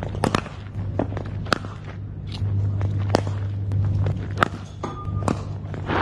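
Cricket net practice: a bat striking balls and the batsman's footsteps on the pitch, heard as scattered sharp cracks and taps over a steady low hum.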